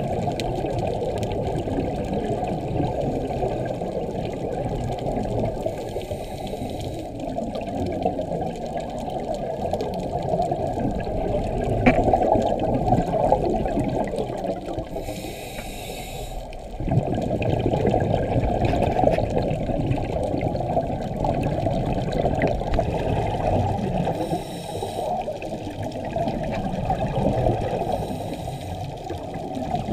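Muffled underwater rushing and bubbling picked up by a camera in an underwater housing, with a scuba diver's regulator breathing: a short hiss four times, and the bubble rush dipping and then surging back about halfway through.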